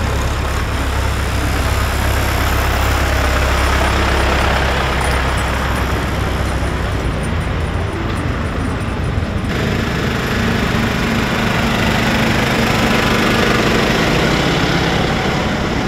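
Farm tractor engines running steadily as the tractors pass. About nine and a half seconds in, the sound changes abruptly to another steady engine hum.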